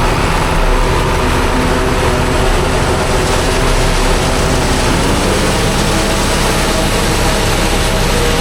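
Tractor and John Deere 3970 pull-type forage harvester running steadily while chopping corn: a loud, continuous machinery drone with a steady whine over a low rumble that eases a little about halfway through.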